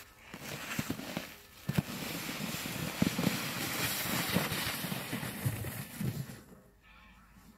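Plastic sled sliding down a thin layer of snow, a rough scraping, crackling hiss with scattered knocks, dying away about six seconds in as the sled gets farther off.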